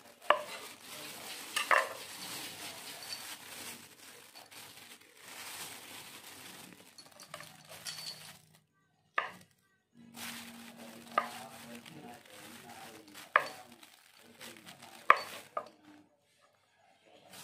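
Knife cutting pork meatballs on a cutting board: a handful of sharp, irregularly spaced knocks of the blade on the board over a steady hiss.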